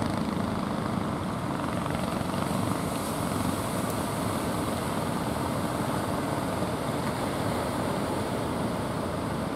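Steady running of a wooden fishing boat's engine as it heads in to shore, mixed with the wash of breaking surf.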